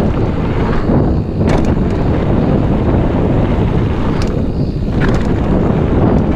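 Wind rushing over an action camera's microphone as a mountain bike rolls fast down a dry dirt trail, with a steady tyre rumble. A few sharp knocks come through as the bike hits bumps, one about a second and a half in and two more about four to five seconds in.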